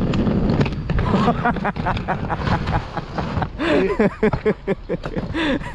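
Wheeled OGIO luggage bag towed behind a bicycle, its wheels rumbling and clattering over tarmac and brick paving, with wind on the microphone. Brief voices come in during the second half.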